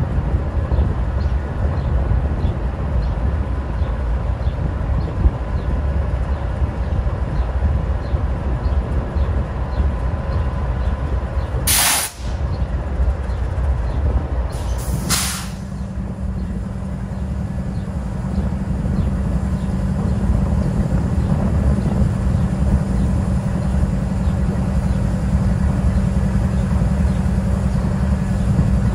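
GE Dash 9-44CW diesel locomotive with a V16 engine, standing and idling with a steady low rumble. Its air system lets off two short hisses, about 12 and 15 seconds in, the second doubled. After the second hiss a steady low hum joins the idle.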